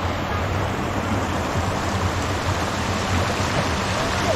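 Steady rush of running water from a spring-fed stream.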